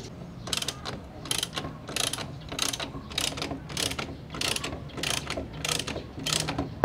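Hand socket ratchet clicking in short bursts about every half second or so, on each back-stroke, as it loosens an engine-hanger bolt.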